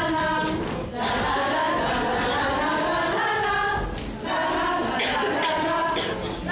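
A group of women singing together without accompaniment, in phrases with short breaks about a second in and again near four seconds.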